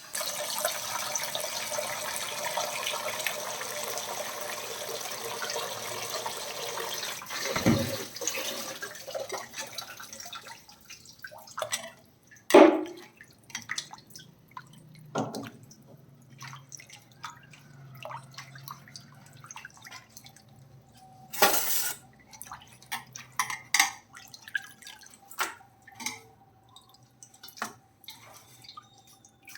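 Kitchen tap running steadily into a sink for about seven seconds, then shut off. After it come scattered knocks and clinks of dishes and utensils being handled, with sharper clatters about twelve and twenty-one seconds in.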